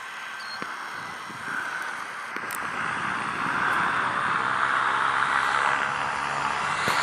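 Air Tractor AT-802A's Pratt & Whitney PT6 turboprop engine running as the plane taxis, a steady whine that grows louder about halfway through.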